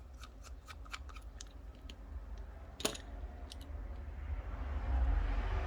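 Light clicks and taps of small repair tools on a smartphone's internal parts, several a second, with one sharper click about three seconds in. A low rumble swells near the end.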